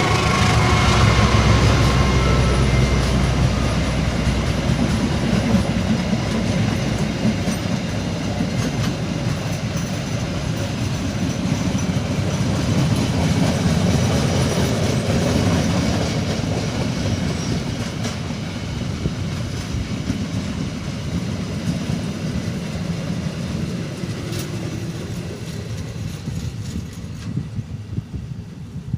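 Departing passenger train rolling past, wheels clattering over the rail joints in a heavy rumble. A high ringing tone dies away in the first few seconds, and the rumble then fades slowly as the train draws away.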